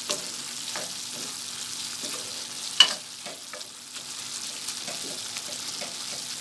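Minced meat sizzling in oil in an aluminium karahi on a raised flame, stirred and scraped with a slotted spoon: the keema being fried dry (bhuna) after releasing its water. A sharp metal clink of the spoon against the pan comes a little under three seconds in.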